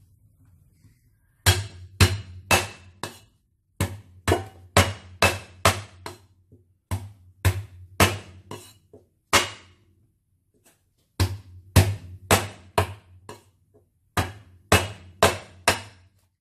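A cleaver striking red shallots on a wooden chopping board to smash them: sharp knocks in quick runs of four to six blows, with short pauses between the runs.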